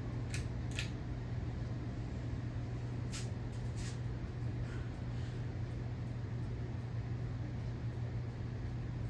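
52-inch Hunter Adirondack ceiling fan running, its motor giving a steady low hum, with a few light clicks in the first four seconds.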